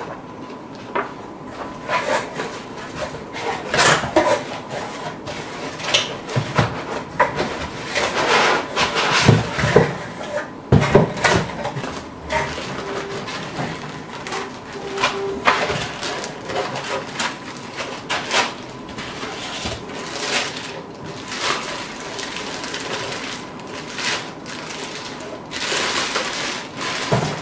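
Packaging handled by hand: paper sheets rustling, white foam packing blocks rubbing and knocking, and a plastic bag crinkling loudly near the end as the camera is drawn out. A faint steady high tone runs underneath.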